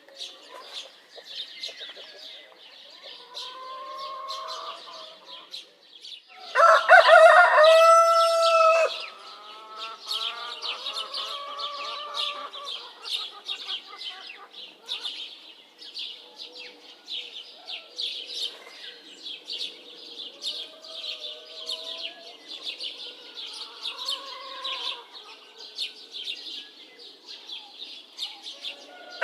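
A rooster crows loudly once, about seven seconds in, over a steady chorus of small birds chirping. Fainter calls from other fowl come at intervals.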